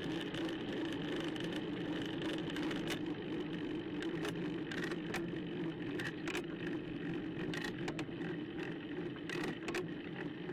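Road bike rolling along a tarmac lane: a steady whir of tyres and drivetrain, with frequent short clicks and rattles.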